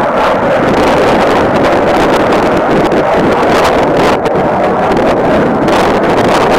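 Steady distant roar of an F-16 fighter jet's engine during a flying display, mixed with wind buffeting the microphone.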